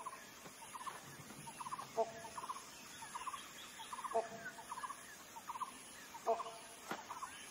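Faint repeated bird calls. A sharper call comes about every two seconds, with quick three-note chatters in between.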